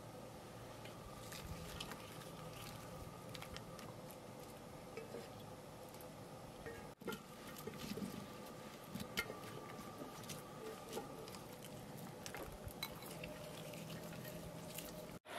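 Raw vegetable pieces (potato, carrot, onion, leek) dropped and pressed by hand onto browned lamb in a pan, making faint scattered soft taps and clicks over a low steady hum.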